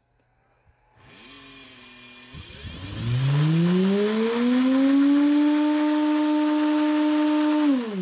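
High-speed three-phase induction motor from a Whirlpool washing machine, run by a variable frequency drive, spinning up with a whine that rises in pitch over about three seconds over a high airy hiss. It holds steady at full speed (310 Hz drive frequency, about 17,500 RPM), then near the end the whine falls quickly as the drive brakes it.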